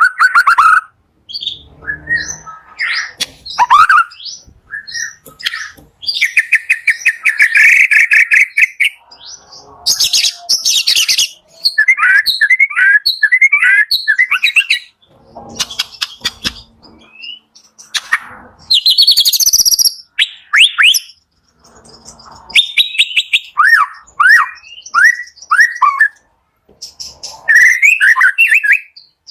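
White-rumped shama (murai batu) singing a long, varied song. It mixes clear whistles, quick runs of down-slurred notes and rapid buzzy trills, with short pauses between phrases. This is the kind of song used as a lure recording to prompt a caged shama to sing.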